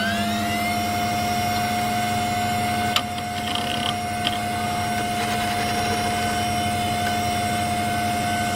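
A steady mechanical whine with overtones, holding one pitch after spinning up just before, over a low hum; a single sharp click about three seconds in.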